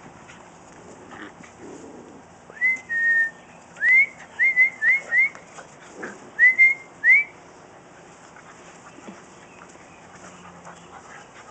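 Puppy giving a string of short, high-pitched yips and whines while play-wrestling, each rising in pitch, about ten in two quick clusters.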